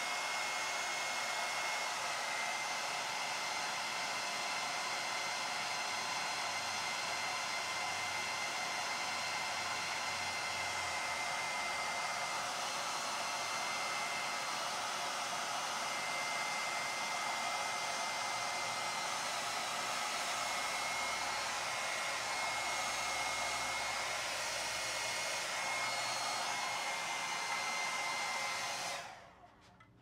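Handheld Revlon hair dryer blowing steadily, a constant rush of air with a thin high whine. It stops about a second before the end.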